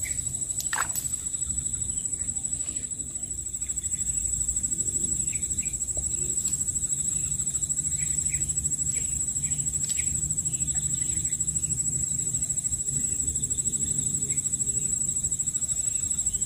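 Outdoor ambience: a steady high-pitched insect drone, with a few short bird chirps scattered through the middle, over a constant low rumble.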